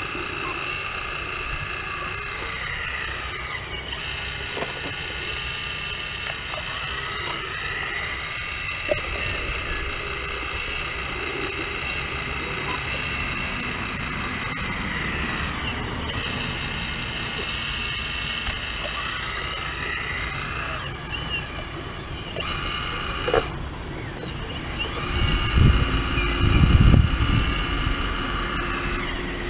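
CAT 235 excavator working: a steady high hydraulic whine whose pitch rises and falls every few seconds as the machine moves and takes load. A low rumbling burst comes near the end.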